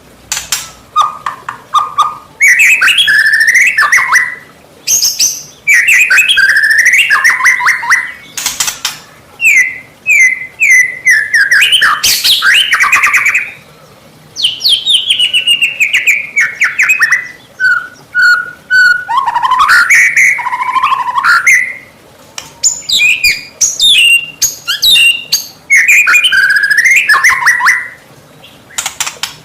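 White-rumped shama (murai batu) singing loud full song: varied phrases of gliding whistles, quick trills and sharp clicks, in bursts of one to two seconds with short pauses between. This is the aggressive song used to provoke a rival shama into answering.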